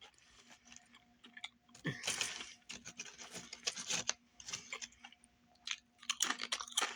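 A person chewing a Subway sandwich close to the microphone, with wet, crunchy bites and chews coming in bursts.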